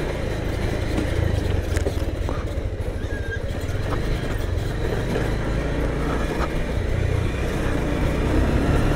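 Bajaj Pulsar single-cylinder motorcycle engine running steadily under way while carrying two riders, a low even rumble with a few faint ticks over it.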